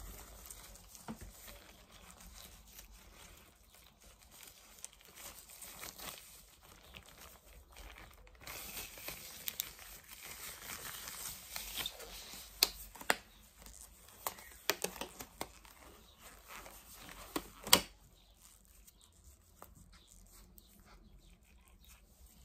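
Tight latex gloves being pulled onto the hands: a rubbery rustling and stretching that grows louder partway through, with several sharp snaps, the loudest one just before the rustling stops.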